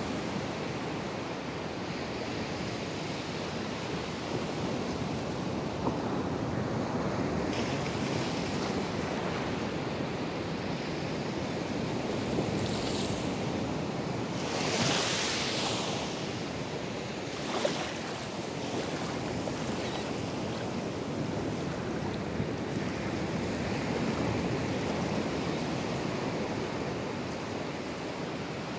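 Atlantic Ocean surf breaking on a sandy beach and washing up the shore: a steady rush of waves, with a few louder washes of foam near the middle.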